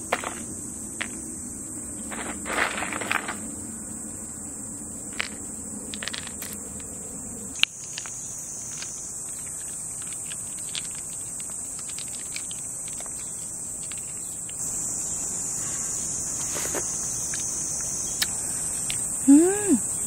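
Crickets chirring steadily in the background, with scattered clinks and taps of a spoon against ice cubes in a hollowed-out pineapple. A short rising-and-falling tone sounds near the end.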